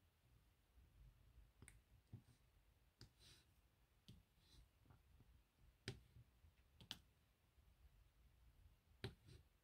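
Faint, irregular small clicks and taps of diamond painting: a wax-tipped drill pen picking up tiny resin rhinestones and pressing them onto the adhesive canvas, several separate clicks with short quiet gaps between them.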